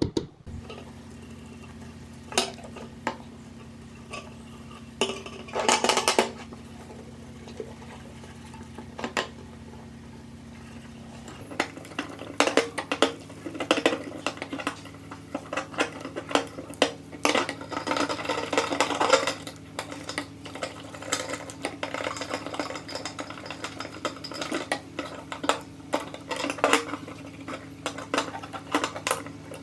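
A pointed steel tool scraping and clicking on a brass clock plate over a steady low hum; then, from about 11 seconds in, a toothbrush scrubbing the brass plate and gears of a pendulum clock movement, a dense scratchy rustle with light metal clinks.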